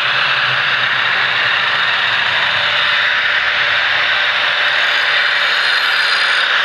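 Drill Master 4-inch angle grinder running with its disc held against the steel edge of a Schrade hatchet, a steady grinding hiss as the bevel is ground down for sharpening.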